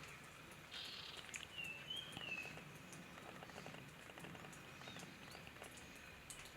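Faint, quiet handling sounds: light ticks and a brief soft rustle as chopped coriander leaves are sprinkled over the curry. A few faint high chirps come about two seconds in.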